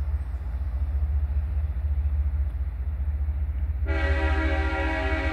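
A locomotive air horn sounds a steady chord of several notes, starting suddenly about four seconds in, over a low steady rumble. It is the horn of a train approaching the grade crossing.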